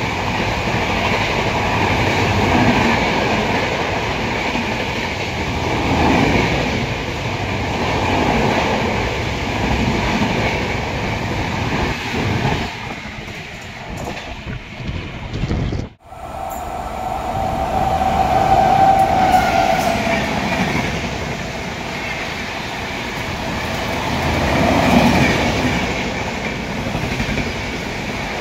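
Express trains of AC passenger coaches passing at high speed, wheels clattering over the rail joints. The first train's noise fades away about halfway through and stops abruptly at a cut, then a second train passes, with a steady tone sounding for about two seconds soon after.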